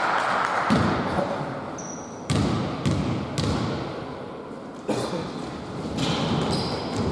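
A basketball bouncing on a hardwood court floor: a handful of separate thuds at uneven spacing, with a short high squeak about two seconds in.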